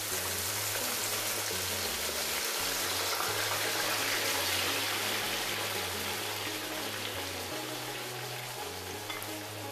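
Boiled, drained gizzards sizzling hard in hot frying oil in a pan as they are tipped in and stirred with a spatula. The steady sizzle is loudest in the middle and cuts off suddenly at the end, with soft background music underneath.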